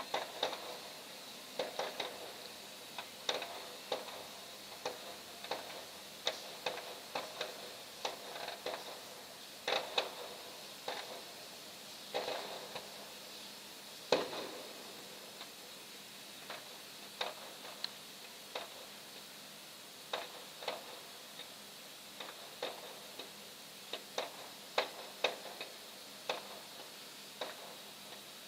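Distant fireworks going off: irregular sharp pops and cracks, one or two a second, some louder with a short echo, over a faint steady hiss.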